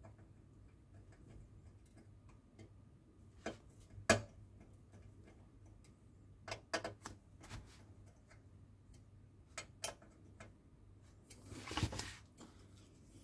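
Light, scattered clicks and ticks of a small screwdriver driving a tiny screw into the plastic and metal parts of a 1:8 scale model car body, the sharpest click about four seconds in. Near the end there is a longer rustling clatter as the assembly is handled.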